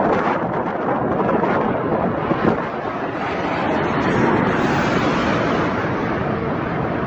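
Strong gusty wind buffeting the microphone, mixed with the rushing noise of a jet airliner's engines, which swells about halfway through.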